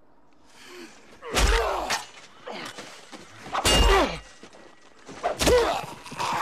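Close-quarters sword fight: three heavy blows land about two seconds apart. Each has a deep thud and a man's cry that falls in pitch.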